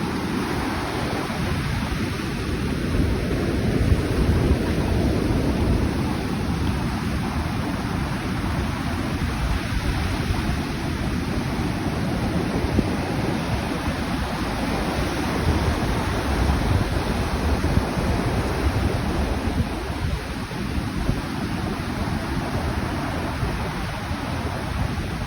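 Atlantic Ocean surf: waves breaking and washing in a continuous heavy rumble that swells and eases, loudest about four seconds in and again past the middle.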